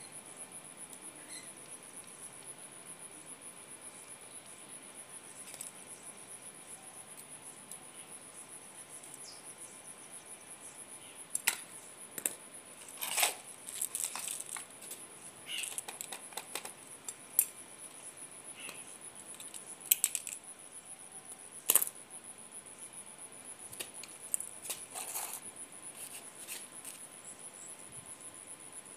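Steady high-pitched chirring of insects, likely crickets, with a scatter of short sharp clicks and scrapes from about halfway in: bare electrical wire being handled, twisted and cut with pliers.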